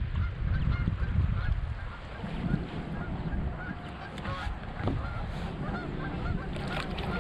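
Geese honking, many short calls repeating over one another, over a low rumble of wind on the microphone.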